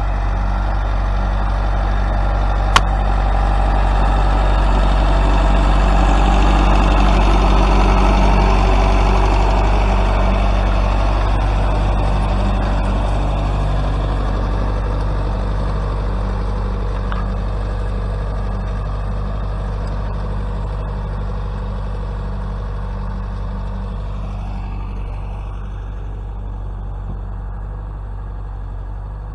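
Tractor engine running steadily. It grows louder over the first several seconds, then slowly fades as it moves away. A single sharp click comes about three seconds in.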